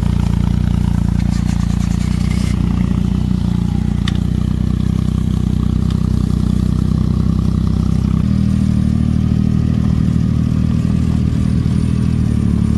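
Buggy car's engine running steadily close by, its note changing about eight seconds in.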